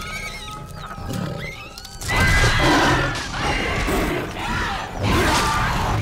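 A troop of baboon-like creatures calling in wavering shrieks, sparse at first, then suddenly much louder and denser from about two seconds in. A low rumble of film score runs beneath.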